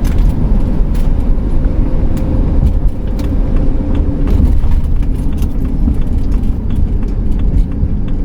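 Road and engine noise inside a moving camper van's cab: a steady, loud low rumble, with light clicks and rattles throughout.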